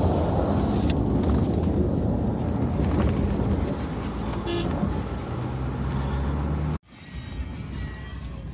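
Road and engine noise inside a moving car's cabin, with a brief horn toot about four and a half seconds in. The sound cuts off abruptly near the end, leaving a much quieter background.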